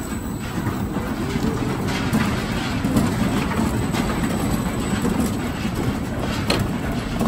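Cars of a kiddie amusement ride rumbling and clattering as they run around their circular track.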